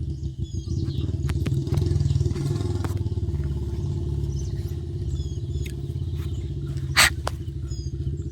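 An engine idling with a steady, fast low putter. Short high chirps sound a few times over it, and there is one sharp click about seven seconds in.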